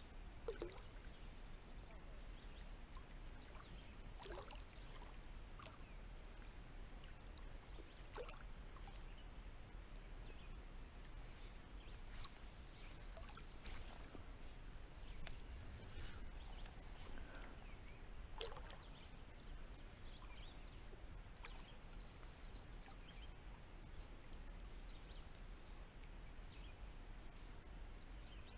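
Lake water lapping and sloshing softly around a float tube as it moves, with a few brief light splashes scattered through and a faint steady high hum underneath.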